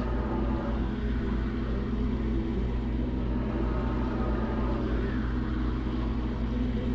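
Steady low rumble with a faint hum, unchanged throughout.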